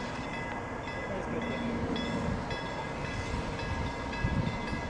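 Narrow-gauge steam train standing at a station platform, the steam locomotive giving a steady hiss with faint steady high tones above it. A few low thumps come near the end.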